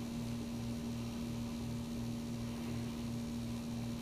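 Steady electrical hum under faint hiss, with a low throb pulsing about three times a second.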